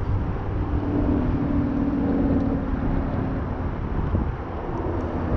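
Wind buffeting the microphone, with a steady low hum that comes in about half a second in and fades out about three and a half seconds in.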